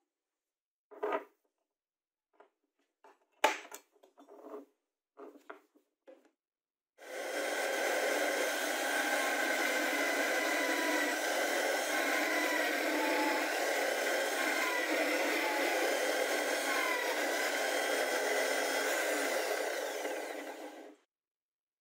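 A drill press running and drilling a hole through a hex nut clamped in locking pliers: a steady motor whine with a few brief squeals as the bit cuts, starting about seven seconds in and stopping about a second before the end. Before it, light clicks and one sharp knock as a plywood handwheel is fitted onto threaded rod.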